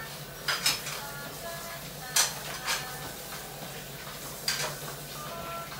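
Dishes and cutlery clinking at a kitchen sink: a few separate sharp clinks, each with a brief ring, spread over several seconds.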